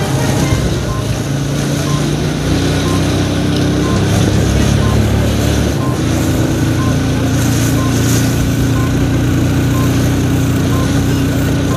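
Motor vehicle engines running with a low, steady hum, and a reversing alarm beeping about once a second.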